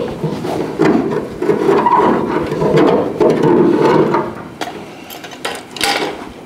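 Hand tool scraping and prying at caulk-sealed sheet metal around a car's fuel-filler opening, in rough repeated rubbing strokes with some squeal. The strokes stop about four and a half seconds in, and a few light clicks follow.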